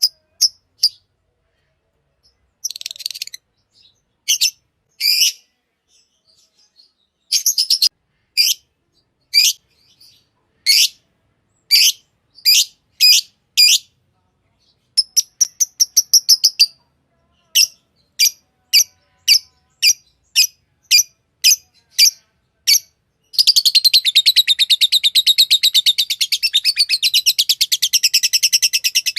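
Green Fischer's lovebird chirping: short, sharp, high chirps, singly and in quick runs with pauses between, then breaking into a fast, unbroken chattering song for the last several seconds.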